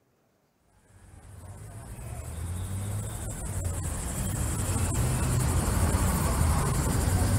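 Ambient sound bed of an animated-series teaser soundtrack fading in from silence about a second in and swelling steadily: a low rumble under a high, insect-like hiss, with a few faint clicks.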